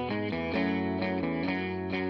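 Background instrumental music with a steady level and new notes about twice a second.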